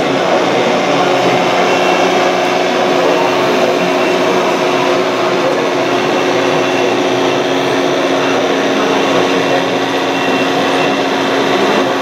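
Radio-controlled scale Caterpillar crawler bulldozer model running as it pushes sand: a steady mechanical hum with a few held tones.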